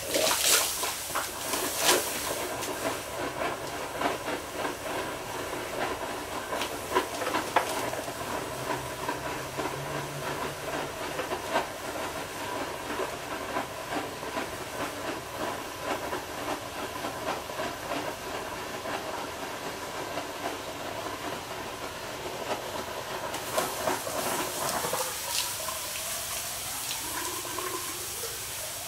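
Water boiling violently and hissing off as steam inside a steel cannon tube, as about 40 pounds of 1,000-degree outer tube shrinks onto the water-cooled inner tube. Sharp pops come through the steady hiss, and rising whistling tones appear near the end.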